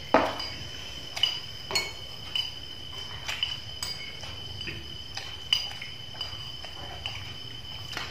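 Spoons clinking and scraping against plates and a metal bowl as several people eat, in irregular clinks, the sharpest right at the start. A steady high-pitched tone sounds behind them throughout.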